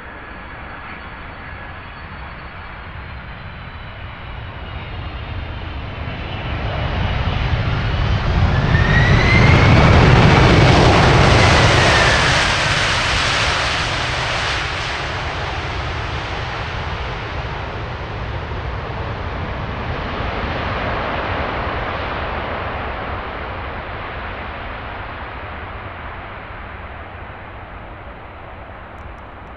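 Boeing 747 jet engines at approach power as the airliner passes on its landing approach. The engine noise swells to a loud peak about ten seconds in, with a whine that bends in pitch as the aircraft goes by, then fades. It swells again more gently about twenty seconds in before dying away.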